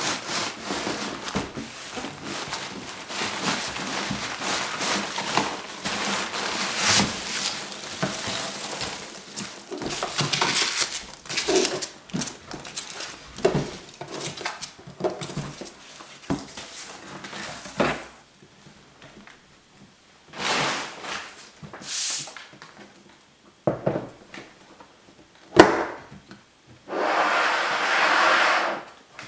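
Hands rummaging through loose foam packing peanuts in a cardboard box, a dense rustling for about the first eighteen seconds. Then come scattered knocks, the sharpest about 25 seconds in, as the hard plastic lens case is handled and set on the tabletop. Near the end comes a rubbing scrape about two seconds long as the case is turned on the table.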